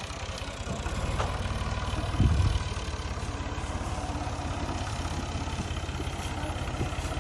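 Combine harvester's diesel engine running steadily with a fast, even low throb; a brief louder low surge comes about two seconds in.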